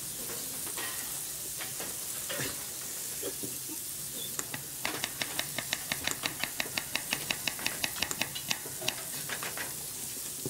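Chef's knife chopping carrots on a cutting board in quick, even strokes, about six a second, starting about five seconds in, over a steady sizzling hiss of food frying.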